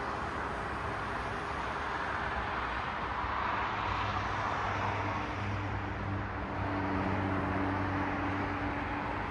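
Road traffic: the tyre and engine noise of cars passing on a city street, swelling as a vehicle goes by about four seconds in, then a steady low engine hum from about five seconds on.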